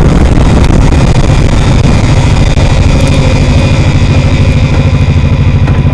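1998 Honda Shadow VT1100T's V-twin engine running with a pulsing beat that grows more even toward the end, heard from a mic clipped to the rear luggage rack near the exhaust pipes.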